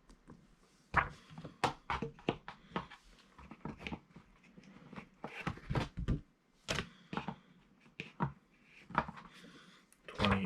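Comic books being handled: paper rustling and a string of light taps and thunks as the issues are moved and set down.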